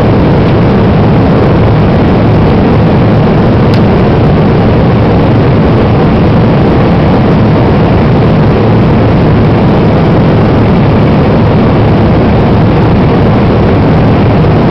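Steady cabin noise of a jet airliner climbing after takeoff: engine and airflow noise heard from inside the cabin, loud and even, with a strong low hum.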